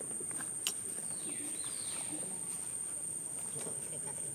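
Outdoor wildlife ambience: a steady high-pitched insect drone, with a bird call sweeping down in pitch about a second in and a single sharp click just before it.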